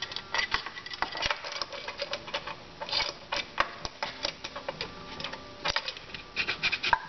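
Irregular light clicks and taps of metal transmission parts handled by hand: the 1-2 band servo assembly being fitted into its bore in the transmission case.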